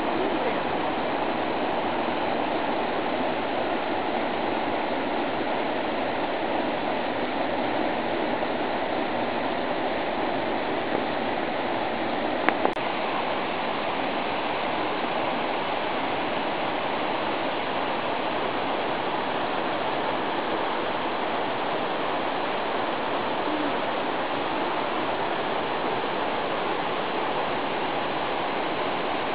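Waterfall: a steady, even rush of falling water, with one brief click about twelve seconds in.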